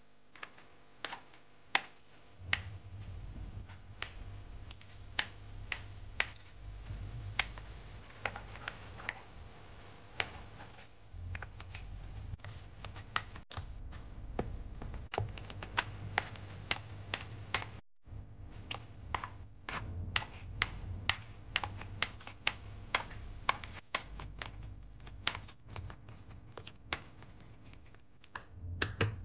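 Wire potato masher working boiled potatoes in a stainless steel pot: irregular sharp metallic clicks, several a second, as the masher strikes the pot's bottom and sides, over dull thuds as it presses down.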